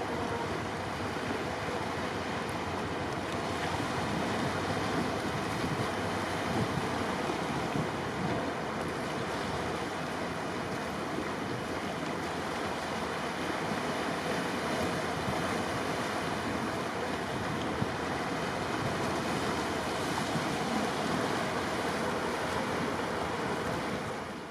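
Steady rush of wind and sea water with no distinct events, fading out at the end.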